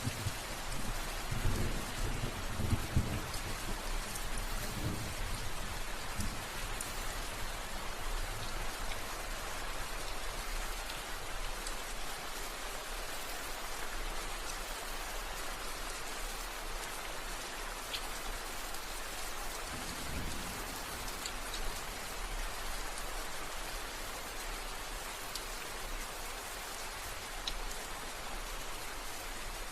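Steady rain falling, an even hiss of drops on surfaces. Low rumbles of thunder swell during the first few seconds and again about twenty seconds in.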